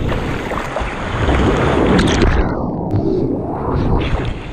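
Whitewater of a breaking wave rushing and splashing around a camera held at the water's surface; about halfway through the sound goes muffled for roughly a second as the camera dips under, then opens up again.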